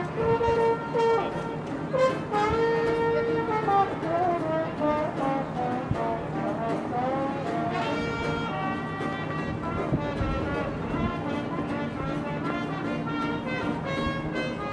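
Live street music: a melody of held and sliding notes over a steady low accompaniment.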